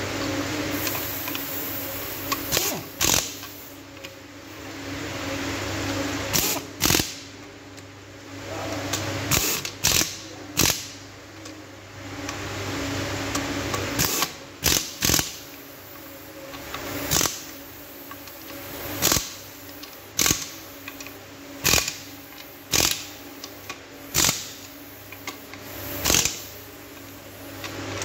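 Hand tools and parts being handled on a Yamaha VX 1050cc jet ski engine during its rebuild: about twenty sharp clicks and knocks, single or in quick pairs, at irregular intervals of a second or two, over a steady low hum.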